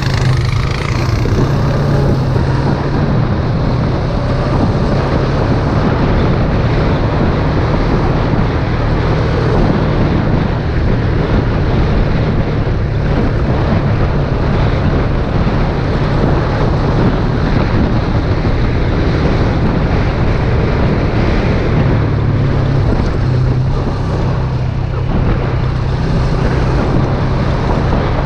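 ATV engine running steadily at cruising speed, with wind rushing over the microphone and tyres rolling on a gravel road.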